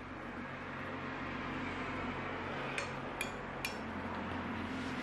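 A metal spoon clinks three times against a porcelain bowl, with short bright rings, as it scoops food, over a steady background hum.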